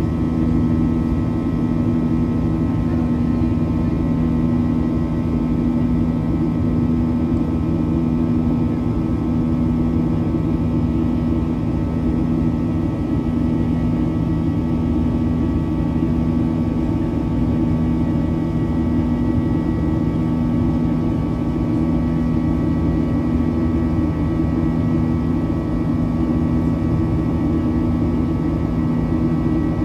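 Boeing 737-800's CFM56-7B jet engines at high thrust, heard inside the forward cabin: a steady rush with several fixed buzzing tones, the 'buzzsaw' noise of the fan blade tips running supersonic.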